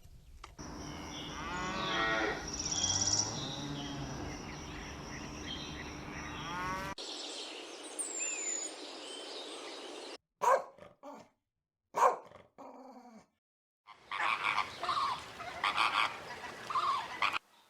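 A run of short farm-animal recordings cut one after another. Each holds calls from a different animal, and the clips start and stop abruptly.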